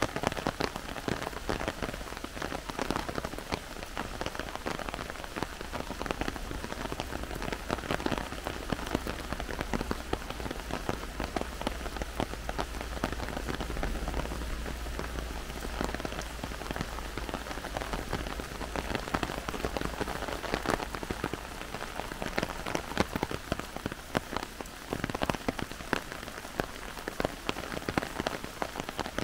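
Heavy rain falling in a forest: a dense, steady patter with many sharp drops striking close by. A low rumble runs underneath, strongest through the middle.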